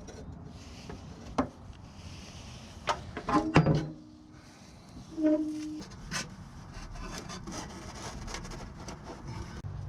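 Scraping, rubbing and sharp metal clanks of tools and exhaust hardware as the rubber exhaust hangers are pried off the stock exhaust. There are scattered knocks, the loudest a brief ringing clank about three and a half seconds in, with another short ringing knock a couple of seconds later.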